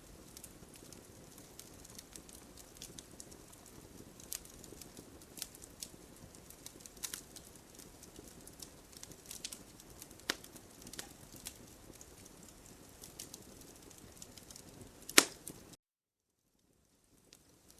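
Campfire crackling: irregular sharp pops and snaps of burning wood over a soft steady hiss, with one louder pop near the end. The sound then cuts out completely for over a second before the crackling resumes.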